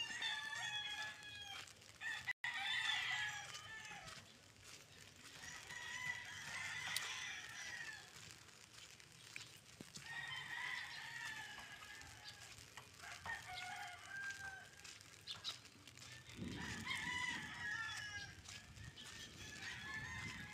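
Faint rooster crowing, repeated about six times, each crow a second or two long with a few seconds between.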